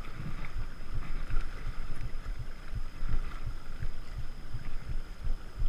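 Wind buffeting a body-worn camera's microphone, an uneven low rumble with irregular thumps, over a faint steady high-pitched whine.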